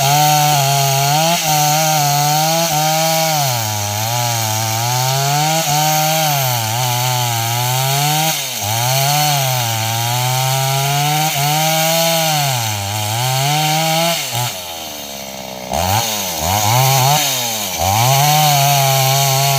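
Stihl MS 381 two-stroke chainsaw running at full throttle, its pitch sagging and recovering again and again as it bogs down under load in the cut. About fifteen seconds in it drops back briefly, then revs up twice more.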